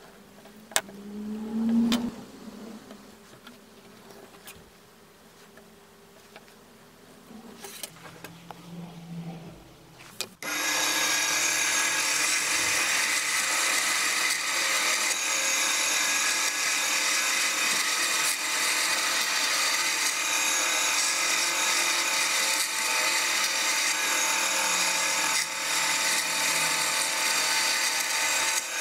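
A few light taps and a short squeak of a marker and steel ruler on a cork pad. About ten seconds in, a bandsaw starts suddenly and runs with a loud, steady noise as its blade cuts a cork-and-sawdust composite board into strips.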